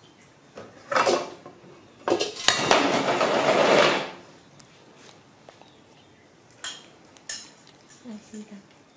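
Metal pot lid clanking and then clattering and scraping for about two seconds as a baby monkey pulls it off a stainless-steel pot and drops it onto a metal tabletop, followed by faint taps as it reaches into the pot.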